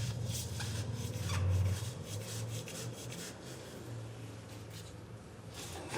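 A rag rubbing and wiping grease off a metal CV-joint part, a steady scrubbing sound with a few light clicks of metal being handled.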